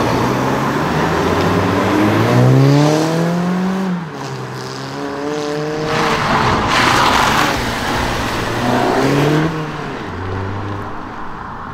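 Cars pulling away under hard acceleration, among them a Volkswagen Scirocco, their engine notes rising in pitch in several separate pulls. About six seconds in there is a loud, rough stretch of exhaust noise, and a lower steady engine note follows near the end.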